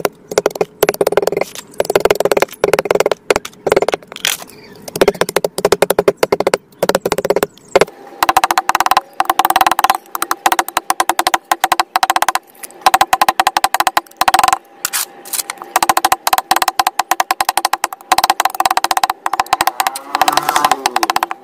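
A cleaver chopping rapidly through vegetable peels and leaves on a chopping block, making a fast run of sharp knocks.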